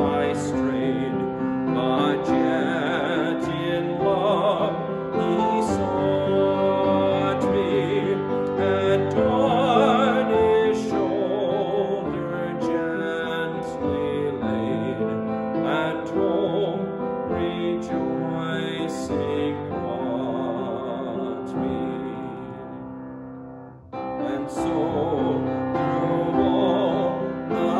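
A hymn sung slowly with keyboard accompaniment. One verse ends and the music fades briefly about 23 seconds in, then the next verse begins.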